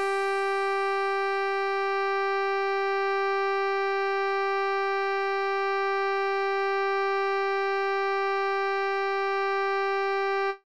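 A single synthesized musical note held perfectly steady for about ten and a half seconds, with a bright, buzzy stack of overtones and no vibrato, then cutting off suddenly near the end.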